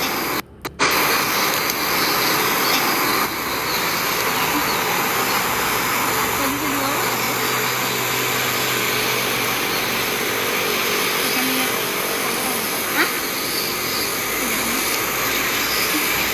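Steady rushing background noise that cuts out briefly about half a second in, with faint voices in the background.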